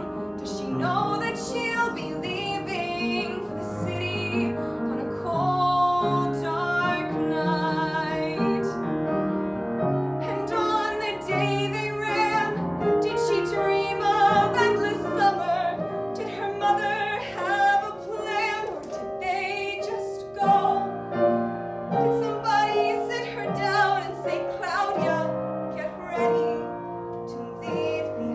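A woman singing a musical-theatre ballad in a trained voice with vibrato on held notes, accompanied by an upright piano.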